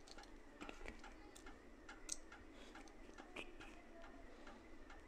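Faint, regular ticking, about three ticks a second, over near silence.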